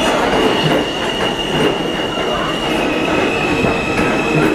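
New York City subway F train of R160 cars moving through the station: a steady high wheel squeal over the rumble and clacking of the wheels on the rails. The squeal drops slightly in pitch about three seconds in.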